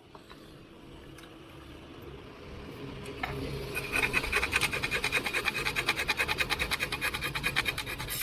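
Hand tool working a sickle's iron blade: rasping metal-on-metal strokes that grow louder over the first few seconds, then run fast and even at about eight strokes a second with a metallic ring.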